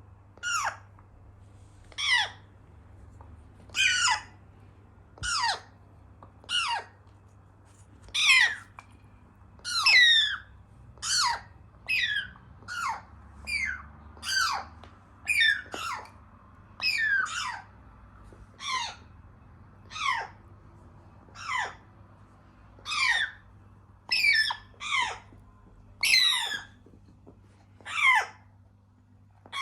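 African grey parrot chicks calling over and over: short, shrill squawks that slide steeply down in pitch, about one a second.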